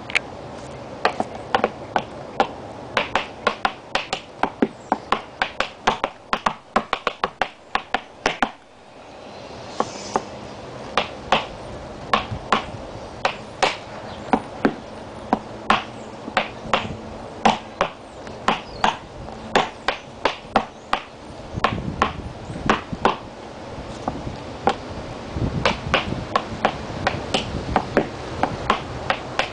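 Tap shoes striking a plywood board in quick rhythmic runs of sharp clicks, a tap dance routine danced through, with a short pause about a third of the way in.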